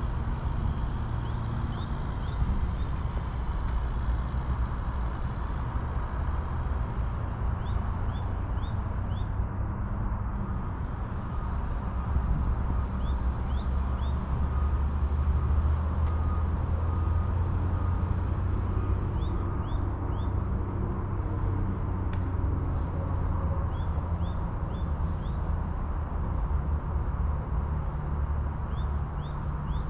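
Steady low rumble of road traffic, a little louder around the middle. A bird's short high chirps come in groups of three or four every few seconds.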